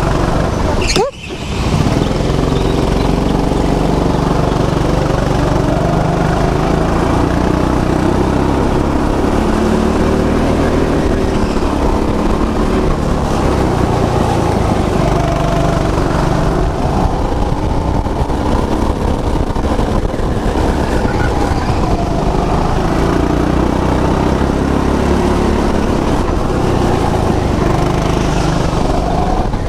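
Small go-kart engines running loud and steady, their pitch rising and falling as the throttle opens and closes, with a brief dropout about a second in.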